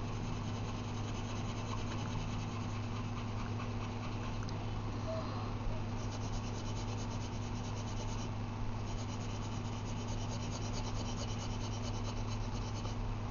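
Pencil shading on paper: rapid back-and-forth scratchy strokes, with two short pauses, over a steady low hum.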